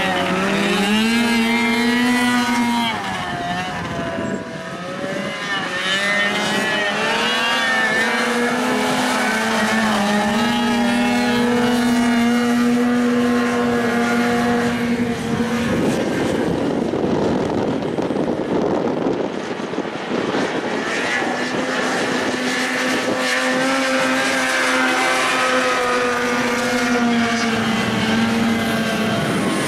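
Engines of six-wheeled racing ATVs running hard around a dirt track, their pitch wavering up and down as the drivers work the throttle. Around the middle the engine note gives way to a rushing noise for several seconds before it returns.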